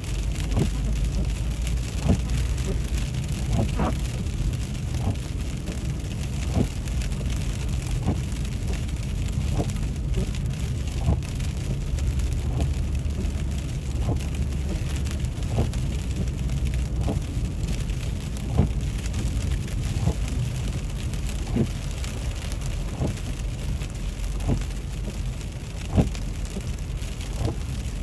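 Steady low road and engine rumble inside a moving car, with irregular sharp ticks of sleet pellets striking the windshield and roof.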